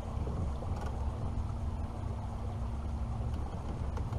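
Pontoon boat's outboard motor running steadily at low cruising speed, a constant low drone with some wind and water noise over it.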